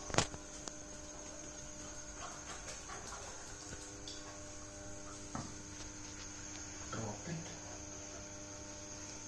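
A steady electrical hum, with a sharp click just after the start and a couple of faint knocks later on.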